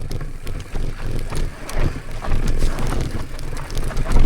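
Mountain bike rolling over a rough, bumpy track: a fluctuating tyre rumble with frequent rattles and knocks from the bike, and wind on the microphone.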